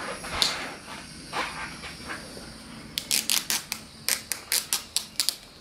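New rubber windshield moulding being pressed into place by hand while the backing of its double-sided tape is pulled out: a couple of scratchy rubs, then a quick run of about a dozen short, sharp scratchy sounds starting about three seconds in.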